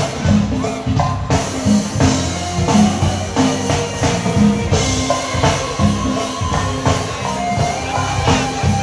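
A live go-go band playing, with a drum kit beat over a repeating bass line.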